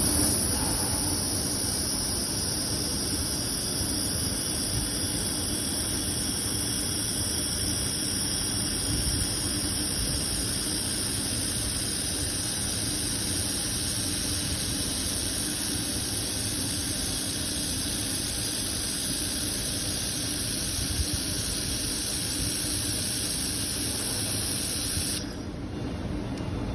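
Handheld laser welder running: a steady high-pitched whine with hiss over a low machine hum, the whine cutting off suddenly near the end.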